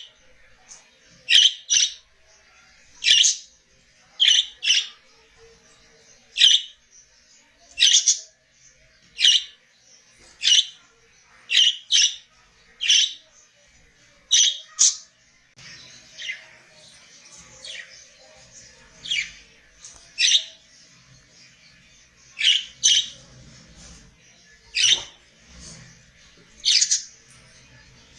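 Budgerigars calling: short, sharp, high-pitched chirps, one or two at a time about every second, over faint continuous twittering.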